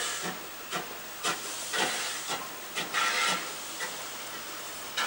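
Queensland Railways class DD17 tank steam locomotive chuffing slowly with its cylinder drain cocks open, giving a run of steam hisses about two a second. The hisses pause for about a second and a half before a louder one at the end.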